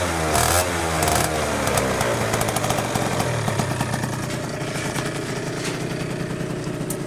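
Gilera DNA two-stroke scooter engine with a Stage 6 Pro Replica expansion exhaust, revved briefly in the first second or so and then idling steadily, gradually a little quieter.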